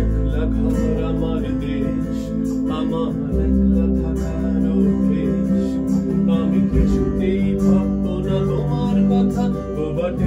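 Korg Pa700 arranger keyboard playing an instrumental passage of a Bengali band song, with a guitar sound strumming over held bass notes that change chord about every three and a half seconds.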